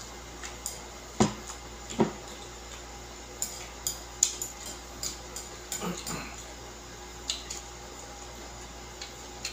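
Chopsticks clicking against a ceramic plate of noodles, with two dull knocks on the table about one and two seconds in, then a run of sharp clicks in the middle.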